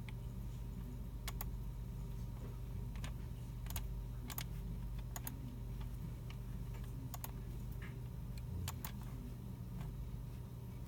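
Computer keyboards and mice in use in a library computer room: scattered, irregular key and mouse clicks over a steady low hum.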